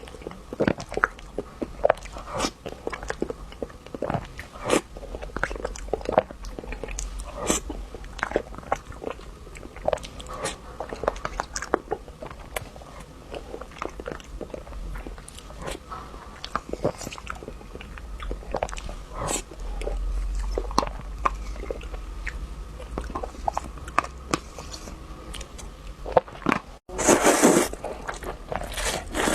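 Close-miked eating: a person biting and chewing, with many short sharp crunches. Near the end the sound breaks off abruptly and a louder noisy burst lasts about a second and a half.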